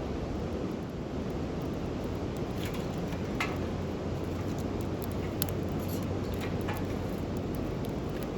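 Wood campfire burning: a steady low rush with scattered sharp crackles and pops.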